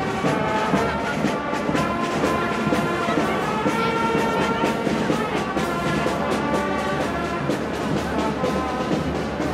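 Marching band playing outdoors: brass instruments sounding sustained notes over a steady drum beat.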